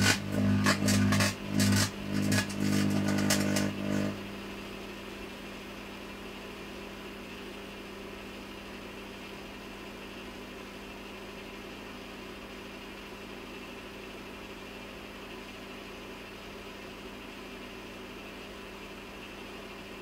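Microwave oven running with a halogen reflector bulb inside: a loud electrical buzz with crackling comes in several bursts over the first four seconds as the bulb's reflector arcs and glows. After that there is only the steady hum of the running oven.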